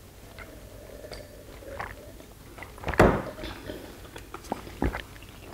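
Close-miked drinking and eating: swallowing gulps and soft chewing clicks, with a sharp thud about three seconds in, the loudest sound, and a smaller one near the end.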